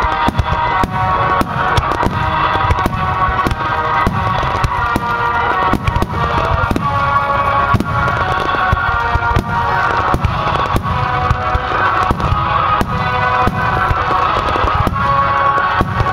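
Fireworks shells bursting in rapid succession, many sharp bangs a second over a low rumble, with music playing underneath.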